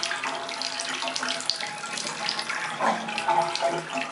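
Water running steadily from a tap.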